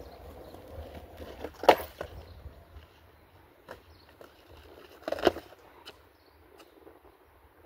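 Skateboard wheels rolling and fading out, with a sharp board clack under two seconds in and a double clack about five seconds in, plus a few lighter taps.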